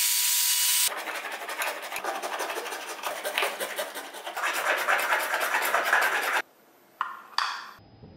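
An electric drill with a small grinding bit runs against a grey PVC pipe fitting, enlarging a hole, and stops abruptly about a second in. A small file then rasps back and forth in the hole with rapid strokes, smoothing the cut plastic. Two sharp clicks follow near the end.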